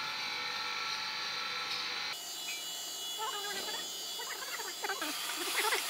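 A steady electrical hum, with faint, light, irregular metallic scrapes and clinks in the second half as the steel valve spring seats are picked out of the Toyota Prado's aluminium V6 cylinder head by hand.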